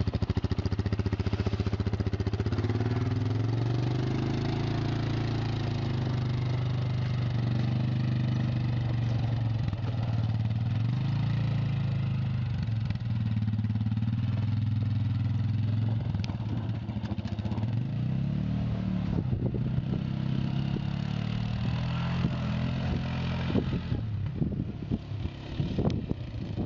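ATV engine running steadily close by, its pitch rising a little about two seconds in. Near the end the sound turns uneven, with short knocks and crackles.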